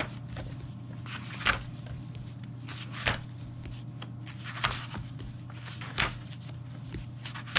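Pages of a large paperback book being turned one after another, a short crisp paper flip about every one and a half seconds, over a steady low hum.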